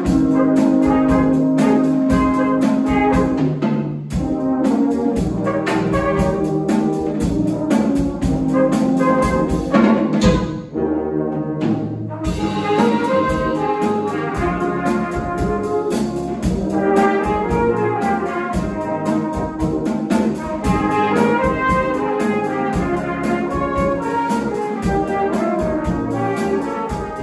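Brass band playing, low brass, trombones and cornets together with a drum kit; about eleven seconds in the higher instruments drop out briefly, leaving only the low parts, before the full band comes back in.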